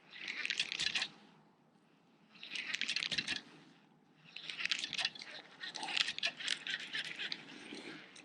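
Fishing reel being cranked in three spurts as a lure is retrieved, a fast clicking whir: a short turn, another short turn, then a longer steady crank of about four seconds.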